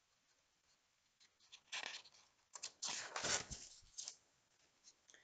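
Pages of a picture book being turned by hand: a few short paper rustles and swishes, the loudest about three seconds in.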